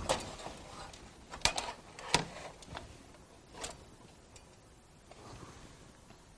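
A replacement metal power supply being slid into a slot machine cabinet: a few scrapes and knocks as the bracket tabs seat, the sharpest clunk about two seconds in.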